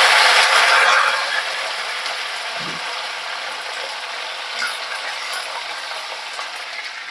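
Curry leaves and coriander sizzling and crackling in hot ghee for a tempering. Loudest at the start, then slowly dying down.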